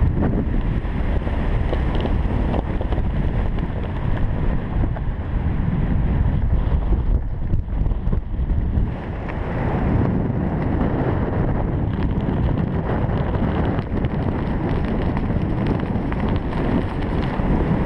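Wind buffeting the camera microphone during a descent under an open parachute: a continuous low rumbling rush that swells and eases, dipping briefly about eight seconds in.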